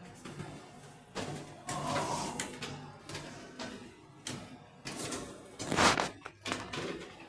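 A series of irregular knocks and clunks, the loudest about six seconds in.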